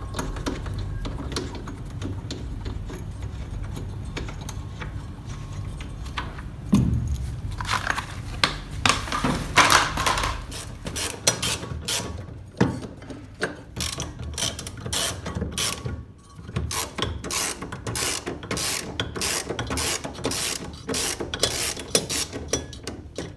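Ratchet wrench with a 13 mm socket on an extension clicking in quick runs as bolts holding a washing machine's motor are undone, with a few knocks; the clicking is busiest in the second half.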